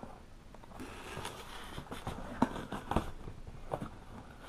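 A knife slitting the packing tape on a cardboard shipping box, then the cardboard flaps being pulled open: scraping and rustling with a few sharp taps.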